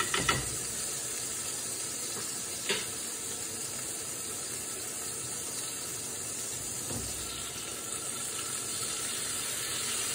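Food sizzling steadily in a frying pan as it is stirred and turned, with the utensil knocking against the pan at the start, again a couple of seconds in, and once more about two-thirds of the way through.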